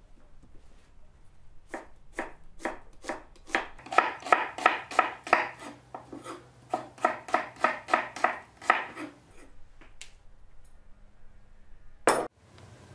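Chef's knife slicing onions on a wooden cutting board: a few spaced cuts, then two runs of quick, even chops at about five a second, and one louder knock near the end.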